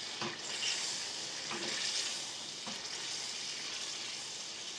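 Marinated mutton sizzling as it fries in oil and tomato masala in a karahi, a steady hiss: the bhunai stage of frying the meat down in its masala. A few light knocks from the stirring spoon.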